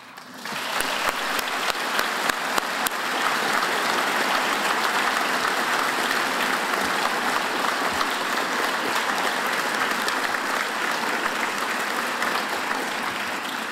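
Audience applauding, building up within the first second, holding steady, then tapering off near the end.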